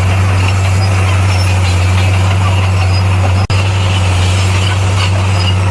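Heavy construction machine's diesel engine running steadily with an even low hum, broken once by a momentary dropout a little past halfway.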